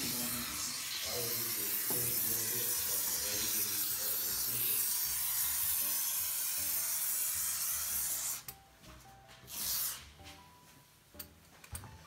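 Polyurethane mounting foam hissing out of a can through a foam gun as beads are laid along a window-sill base, a steady spray for about eight seconds that cuts off suddenly, then one short second burst.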